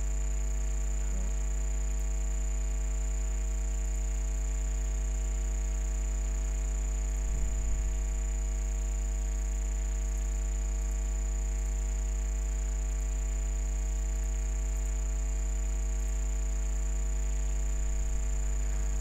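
Steady electrical mains hum with a thin high whine, running unchanged throughout. A brief faint sound comes about seven and a half seconds in.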